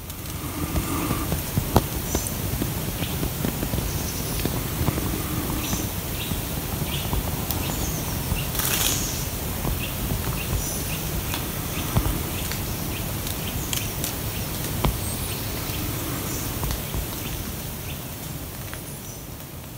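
Outdoor ambience picked up by a phone microphone: a steady low rumble of wind and handling noise, with small birds chirping here and there and a few sharp clicks.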